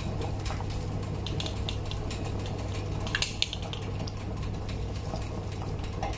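Fish-head broth in a wok on the stove, simmering with scattered small pops and clicks over a steady low hum, while mushrooms are dropped in by hand; a couple of sharper clicks a little after three seconds in.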